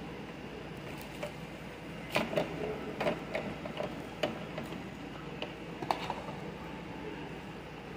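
A run of about a dozen irregular clicks and taps, starting about a second in and stopping near six seconds, over a steady background hiss.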